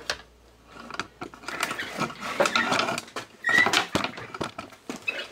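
Plastic clicks, knocks and rubbing as the pried-open housing and socket faceplate of a portable RCD unit are handled, with a short squeak about three and a half seconds in.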